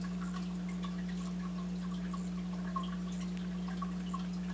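A steady low hum with faint, irregular little ticks over it.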